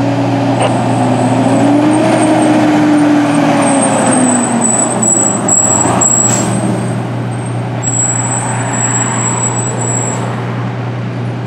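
Fire trucks' diesel engines running as they drive past close by, with tyre and road noise. The engine pitch rises and then falls over the first few seconds.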